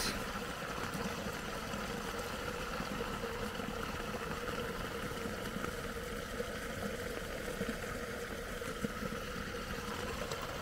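Muddy rainwater pouring out of a culvert pipe and splashing into a flooded pool: a steady rush of water with a faint constant hum underneath.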